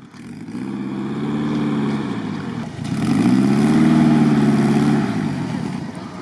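Off-road 4x4's engine revving twice, each rev rising and then falling in pitch, the second longer and louder.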